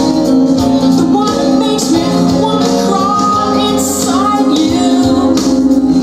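Music played back through a pair of home-built two-way loudspeakers: a song with singing over a steady backing with percussion.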